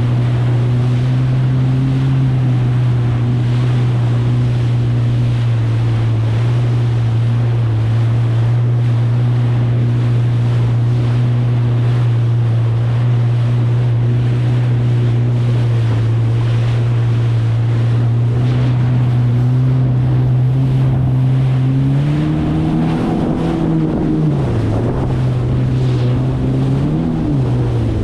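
2023 Kawasaki STX 160X jet ski's four-cylinder four-stroke engine running steadily at cruising revs, with water and wind rushing past. After about twenty seconds the engine pitch rises and dips several times as the revs change.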